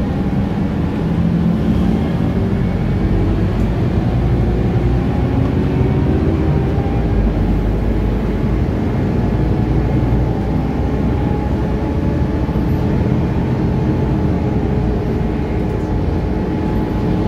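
Scania articulated bus heard from inside the cabin while under way: a steady engine and road rumble, with a faint whine that rises slowly in pitch as the bus gathers speed.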